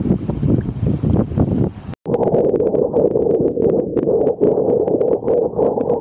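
Wind buffeting the camera microphone over choppy sea, with water sloshing and splashing. The sound drops out for an instant about two seconds in, then resumes as a steadier, more muffled rush.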